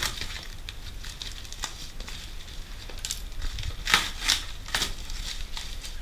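A taped cardboard carton being opened: a box cutter slitting the packing tape, then the cardboard flaps pulled back with a few sharp scrapes and crackles about four to five seconds in.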